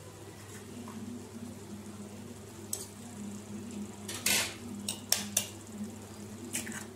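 Eggs cooking in a simmering tomato-onion masala in a non-stick pan: the sauce bubbles and spits, with a handful of short sharp pops over a low steady hum.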